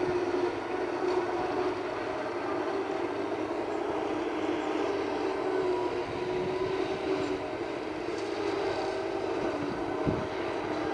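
Forage harvester chopping maize for silage some way off: a steady mechanical drone with a held hum that wavers slightly in pitch. A brief low knock near the end.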